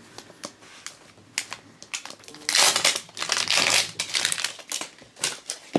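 A plastic blind-box toy capsule being handled and opened: a few faint clicks and rustles, then loud crinkling and crackling of plastic from about two and a half seconds in.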